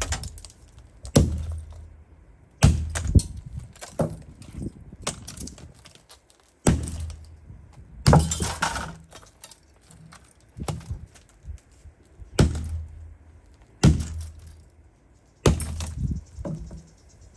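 Hammer repeatedly striking an Untimaty LTOA cordless hammer drill: a series of heavy blows, roughly one every second or so, with cracking and clinking from the plastic housing as it holds up under the hits.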